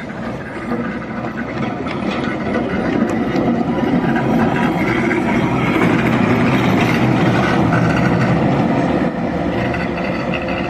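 Illuminated frigate tram running past close by on the street tramway, a rumble of wheels on the rails that builds as it approaches, is loudest about six to eight seconds in, then eases as it moves away.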